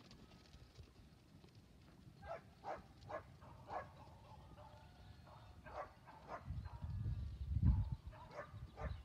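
Short animal calls repeated several times, followed by a loud low rumbling noise that begins about two-thirds of the way in.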